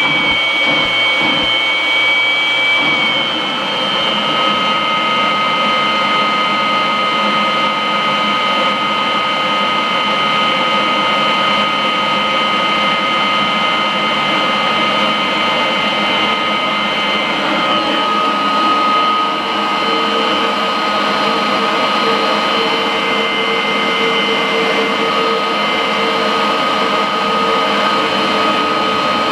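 Kirby upright vacuum cleaner running steadily with its hose attached: a loud rush of air under a high, steady whine. About three seconds in, the pitch of the whine shifts slightly.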